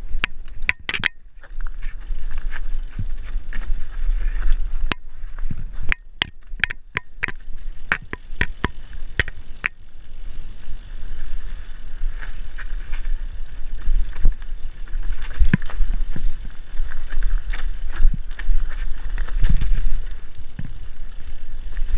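Mountain bike riding down a rough dirt singletrack: tyre noise on the dirt, with frequent sharp clacks and rattles from the bike over bumps and a steady low rumble of wind on the microphone.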